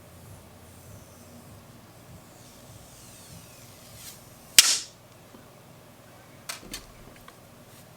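A single sharp snap about halfway through as the old tempered-glass screen protector is pried off the phone screen, followed by a few faint clicks.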